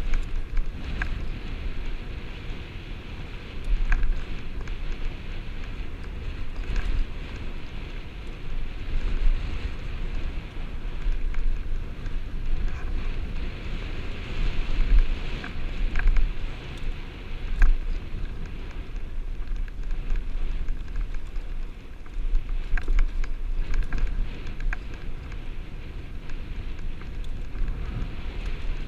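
Mountain bike rolling down a dirt and rock trail, heard from a helmet-mounted camera: wind buffeting the microphone in uneven gusts over a steady hiss of tyres on dirt, with scattered clicks and rattles from the bike over rocks.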